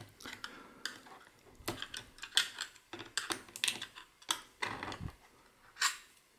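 A laptop hard drive in its metal caddy being levered out of its plastic drive bay with a small screwdriver: irregular clicks, taps and short scrapes, the loudest click near the end.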